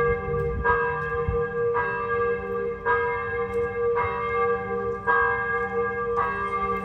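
Mission church bell tolling about once a second, six strokes, each ringing on into the next.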